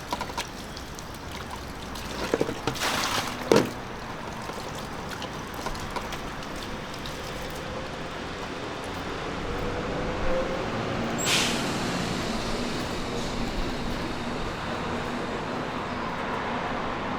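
A heavy truck running steadily, with a few knocks about two to four seconds in, the sharpest near three and a half seconds. A slowly rising tone comes in, then a short hiss of air about eleven seconds in, like an air brake releasing.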